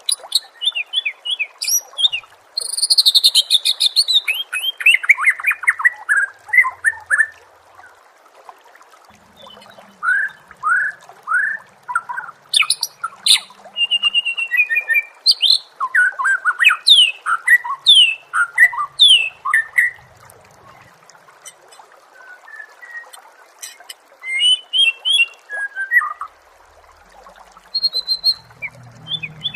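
White-rumped shama (murai batu) singing: loud, varied phrases of rapid sweeping whistles, chirps and quick trills, in bursts broken by brief pauses.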